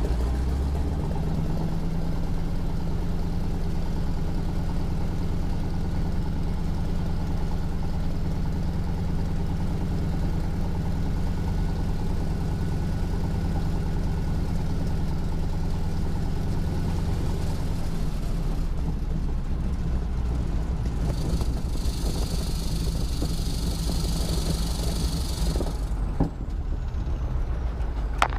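T-6 Texan's Pratt & Whitney R-1340 Wasp radial engine running steadily at low power, heard from inside the cockpit.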